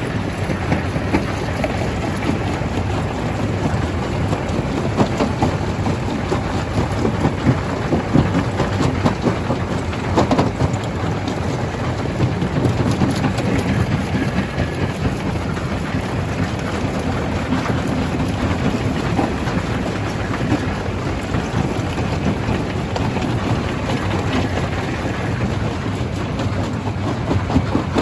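Stone crusher running and crushing rock: a dense, continuous crackle of breaking and rattling stone over a low machine rumble, with a few louder knocks.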